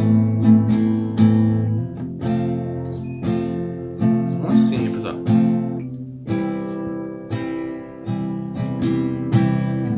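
Acoustic guitar strummed in a steady, repeating pattern of down- and upstrokes, the chords changing every couple of seconds.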